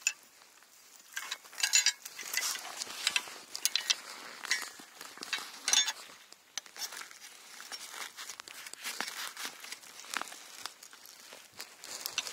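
Rustling of backpack fabric and straps with irregular light clicks and clinks as fishing rods are fastened to the pack. The sharpest clatters come in the first half, then handling noise continues more quietly.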